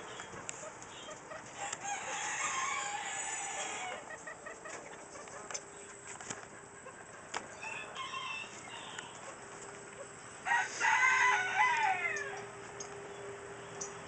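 A rooster crowing twice: a longer, quieter crow about two seconds in, and a louder crow of under two seconds about ten seconds in that falls away at the end.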